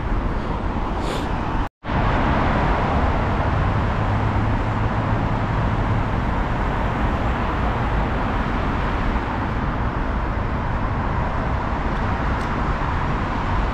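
Steady road traffic noise from a busy city street: cars and motor scooters passing as a continuous rush. It cuts out for an instant about two seconds in.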